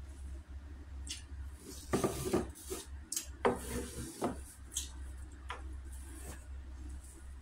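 Close-up eating sounds: small wet clicks of chewing, with clusters of louder knocks and scrapes against a plate about two and three and a half seconds in.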